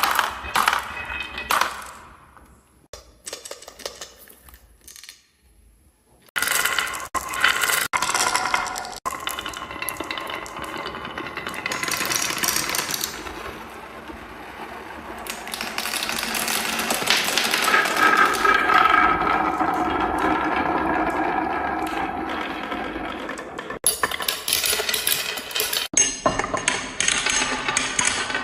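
Marbles rolling and clattering down a HABA marble run, clinking against the track and each other. The clatter dies away about two seconds in, starts again after about six seconds, and turns into a steadier rolling sound in the middle.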